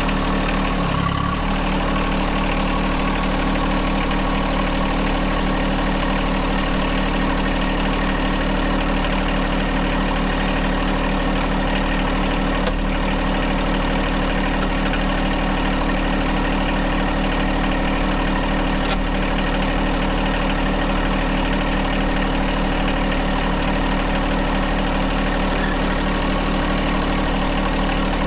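John Deere 1025R compact tractor's three-cylinder diesel engine running steadily at low RPM, with no change in pitch.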